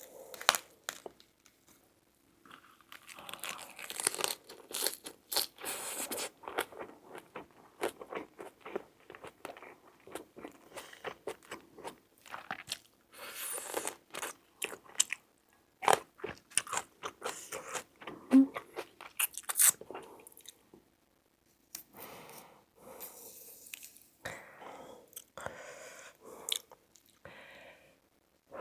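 A person eating crunchy food close to the microphone, likely lettuce wraps of spicy stir-fried pork: irregular wet crunching and chewing, with a short pause partway through.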